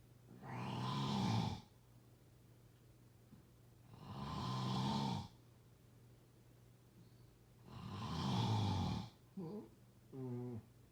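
A person snoring in deep sleep: three long, loud snores, each a bit over a second, coming about every four seconds. Two brief, shorter sounds follow the third snore near the end.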